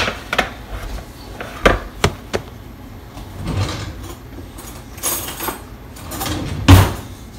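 Kitchen handling sounds as a hot metal muffin tin is set down and moved with oven mitts: a run of sharp knocks and clatters, a few brief rustles, and a heavier thump near the end.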